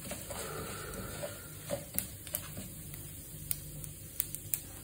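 Mustard seeds popping in hot coconut oil with urad dal and dried red chillies in a non-stick wok: scattered sharp ticks over a faint sizzle, more of them in the second half, as the tempering fries.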